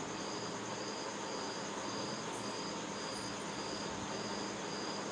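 A cricket chirping steadily, about two short high chirps a second, over a constant background hiss.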